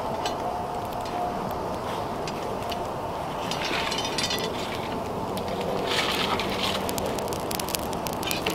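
Long fire of stacked logs burning with a steady rush of flame and many sharp crackles and pops, which come thicker near the end.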